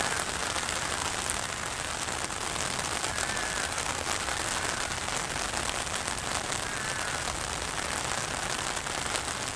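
Heavy tropical-storm rain pouring steadily onto flood water and trees: a dense, even hiss full of the fine patter of drops.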